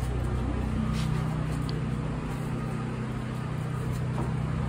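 Steady low mechanical hum with droning tones, like engines or machinery running, with a few faint clicks about one and two seconds in.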